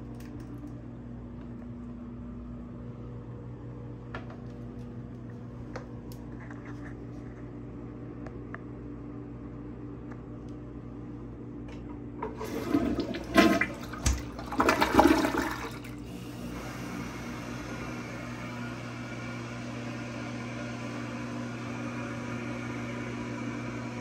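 Dual-flush toilet flushing: a loud rush of water in two surges lasting about three seconds, starting about halfway through. A steady hiss of water follows to the end as the toilet refills. A steady low hum lies underneath throughout.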